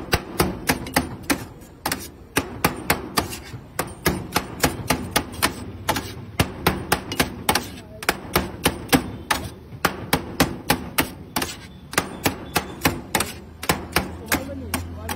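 Cleaver chopping chicken shawarma meat on a steel tray: quick, steady strikes, about three to four a second, with a few short pauses. The blade knocks through the meat onto the metal.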